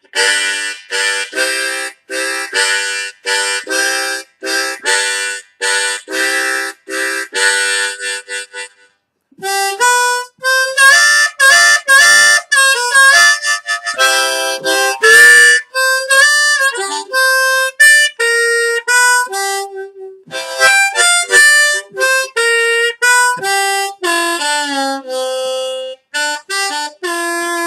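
Seydel diatonic harmonica with a dense exotic-hardwood comb, played solo: a rhythmic chugging of chords at about two a second, then after a brief pause a single-note blues melody with bent notes.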